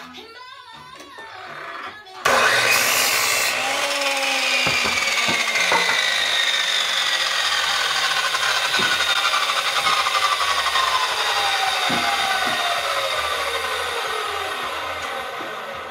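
Haussmann sliding compound miter saw cutting through a wooden board about two seconds in, then the blade spinning down with a slowly falling whine that lasts more than ten seconds: the blade brake is not stopping it quickly.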